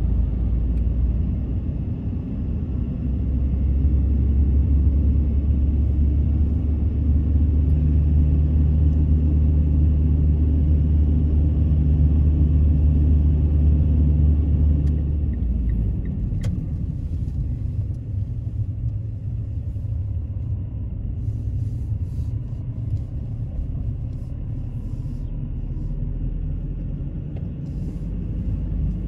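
A car driving, heard from inside the cabin: a steady low rumble of engine and tyres. It is heavier with a strong low hum through the first half and eases to a lighter rumble about halfway through.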